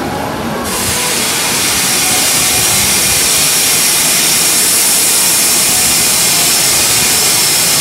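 A loud, steady rushing hiss of air that grows louder under a second in and then holds even.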